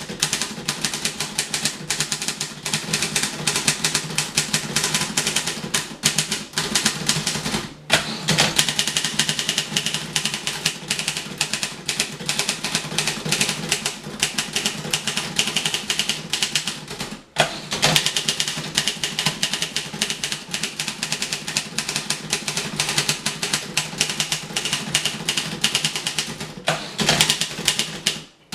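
Fast speed typing on a 1950 Voss ST24 portable typewriter: a dense, rapid clatter of keystrokes, with short pauses about 8 and 17 seconds in.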